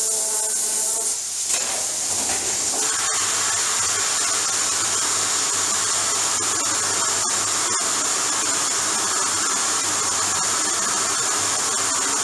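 A fidget spinner driven by a compressed-air jet: its whine rises in pitch for about the first second, then a loud, steady hiss of air takes over, with a few faint ticks.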